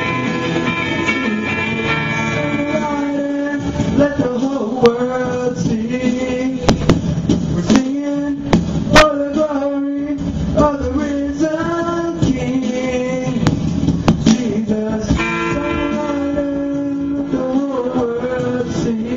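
Male voice singing live into a microphone over a strummed electric guitar, both amplified through a mixer. Held chords open and close the passage, with sung phrases and sharp strums in between.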